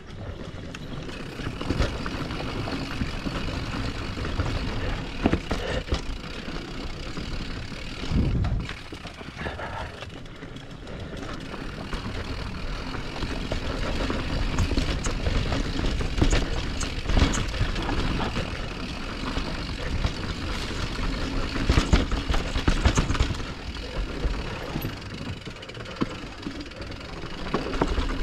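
Mountain bike descending a rough dirt trail: steady wind and tyre noise with the frame and chain rattling and irregular knocks over bumps.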